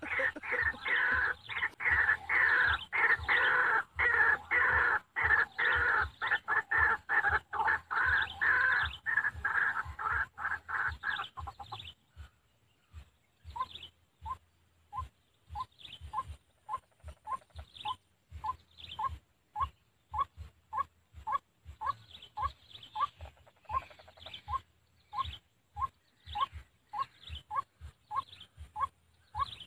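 White-breasted waterhen calling: a rapid run of loud, harsh, repeated calls for about the first twelve seconds, then a steady series of short single notes, somewhat under two a second.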